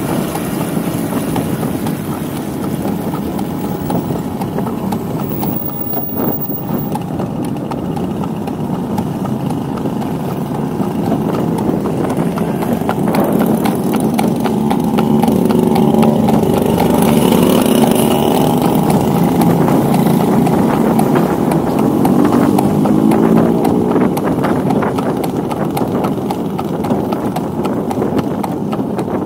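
Horse-drawn carriage on a paved street: the horse's hooves clip-clopping and the carriage rattling. A motorcycle engine runs alongside, its pitch rising and falling in the middle of the stretch.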